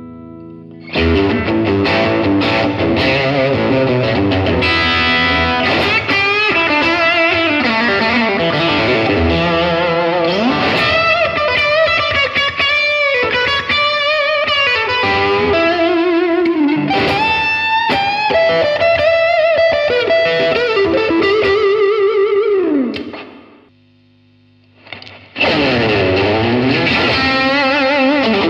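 Electric guitar played through a Blackstar HT-5R MkII 5-watt valve combo on its overdrive channel (Overdrive Voice 1), a distorted lead-style passage with bent and sliding notes. It stops about 23 seconds in, leaving a low amp hum, then resumes a couple of seconds later with the amp on Overdrive Voice 2.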